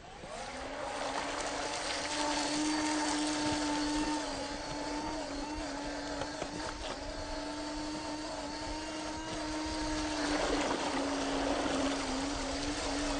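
The electric motor and gears of a 1/12-scale RC crawler whine at a nearly steady pitch as it drives through mud and puddles, over a rough crunching and splashing from the tyres. About ten seconds in there is a burst of louder rough noise.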